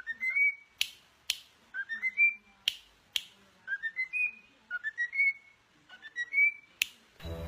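A bird chirping in short whistled phrases of three or four quick notes, each rising in pitch, repeated about five times. Several sharp clicks fall between the phrases.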